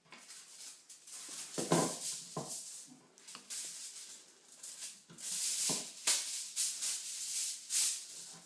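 Aluminium foil crinkling and rustling in irregular bursts as it is folded and pressed around raw chicken breasts, with a few soft knocks.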